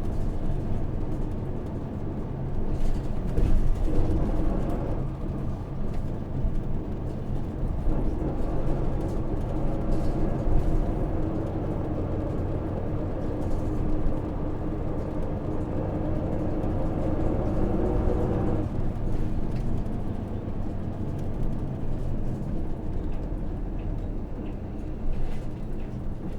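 Hino PJ-KV234L1 city bus's 6HK1 diesel engine running under way, heard from inside the cabin. Its note strengthens about eight seconds in and eases off abruptly about eighteen seconds in, as the bus drives between stops.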